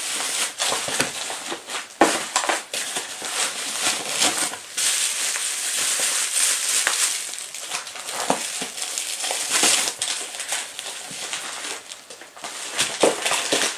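Plastic packaging crinkling and crackling as it is handled and unwrapped.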